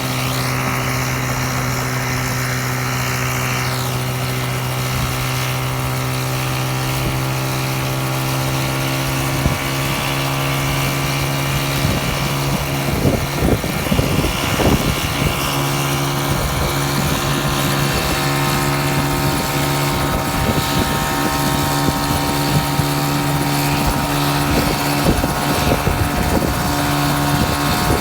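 Micron ultralight coaxial-rotor helicopter running steadily, a deep, even drone. A high whine fades out about four seconds in, and uneven rushing noise joins the drone from about halfway through.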